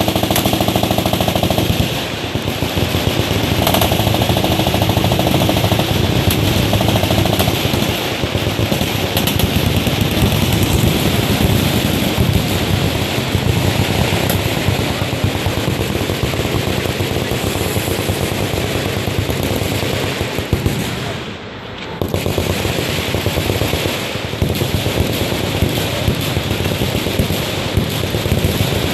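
Machine guns firing full-auto, many guns overlapping into one continuous rattle of shots, with a brief lull about twenty-one seconds in.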